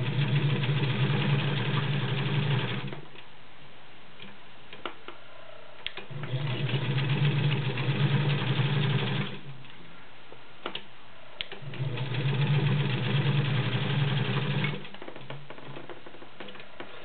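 Elgin-badged Class 15 straight-stitch sewing machine, driven by a 1.5 amp motor, stitching through six layers of denim in three steady runs of about three seconds each. A few light clicks fall in the pauses between runs.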